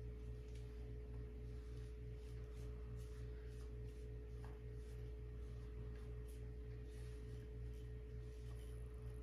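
A spatula scraping cake batter out of a mixing bowl in faint, irregular strokes, over a steady low hum and a constant faint tone.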